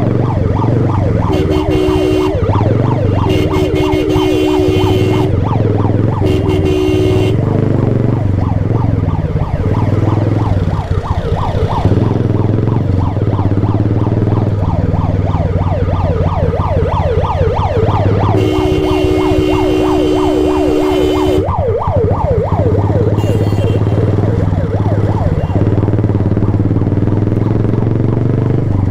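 Ambulance siren sounding close by in a fast, continuous up-and-down yelp, with a motorcycle engine running underneath. Several long, steady horn blasts lasting one to three seconds cut in, four times over the stretch.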